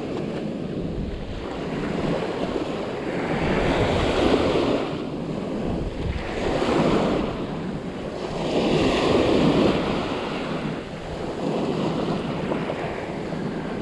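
Small waves washing up a sandy beach shoreline, swelling and fading every two to three seconds, with wind buffeting the microphone.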